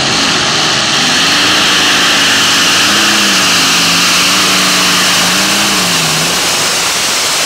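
Modified pulling tractor's engine running flat out under load as it drags the weight sled. The engine note wavers and then drops near the end.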